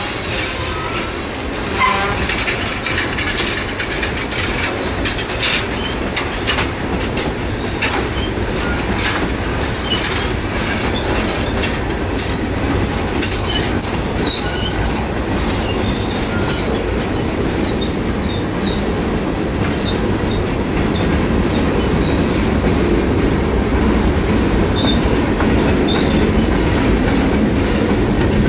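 Freight cars rolling past at close range: a steady rumble of steel wheels with clacking over the rail joints. A string of short, high-pitched squeals runs from about five seconds in to about nineteen seconds, with a couple more near the end.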